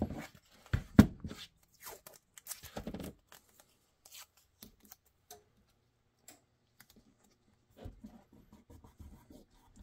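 Hands handling and pressing blue painter's tape onto a taped-up pistol, with rustles, small clicks and a sharp knock about a second in. Sparse faint ticks follow, then more handling near the end.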